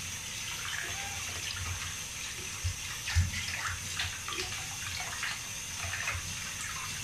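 Tap water running into a plastic basin and splashing as hands wash a small dog in it, with a few low thumps, the loudest about three seconds in.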